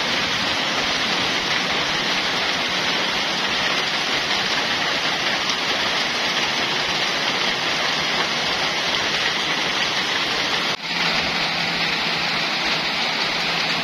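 Heavy rain falling steadily, a dense even hiss that dips for a moment about eleven seconds in.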